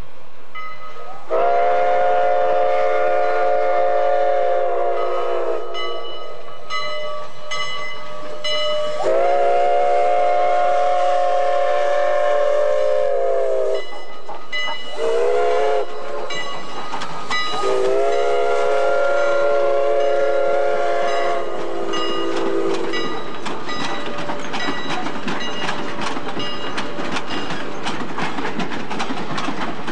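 Chicago & North Western No. 1385, a 4-6-0 steam locomotive, sounding its steam whistle in the grade-crossing pattern: long, long, short, long, each blast several notes at once, the last sagging in pitch as it dies away. Then the loud hiss and rattle of the working locomotive and its cars passing close fill the rest.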